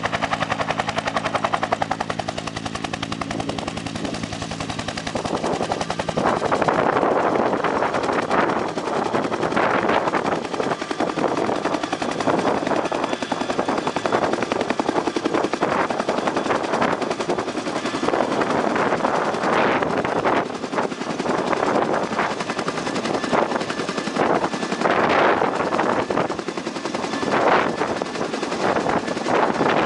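Bell UH-1 Huey helicopter's turbine and two-bladed rotor running steadily, then about six seconds in it grows louder and turns to a rapid, heavy chopping blade slap as the helicopter lifts off and climbs overhead.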